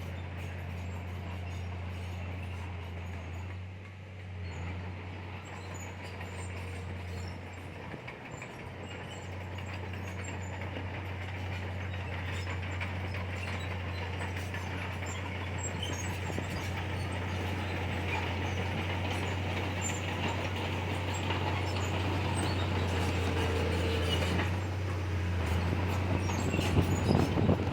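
Heavy diesel earthmoving machinery (bulldozer and dump trucks) running with a steady low engine drone, growing gradually louder toward the end, with a few sharper knocks near the end.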